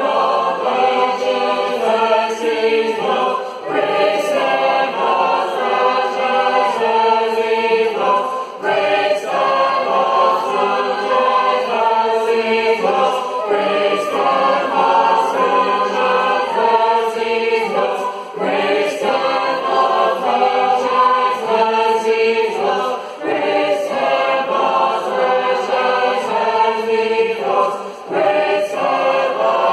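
A large group of voices singing a hymn together, unaccompanied. The phrases are separated by short breaks about every five seconds.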